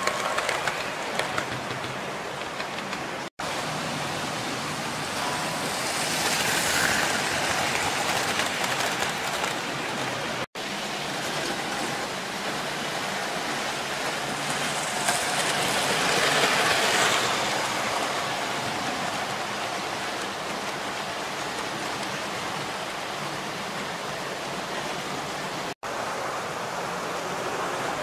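00 gauge model trains running on the layout's track: a steady rushing rattle of wheels and motors on the rails. It swells twice as a train passes close, and cuts out for an instant three times.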